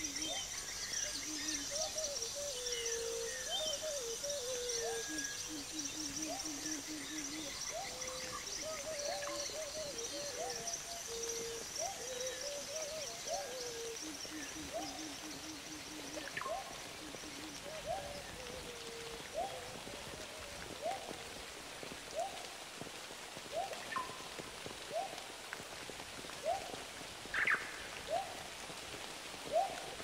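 Layered nature ambience: a short rising animal call repeats about once a second, with bursts of rapid low trilling and high insect chirping that fades out around the middle. A few sharp water drips sound in the second half over a steady background hiss.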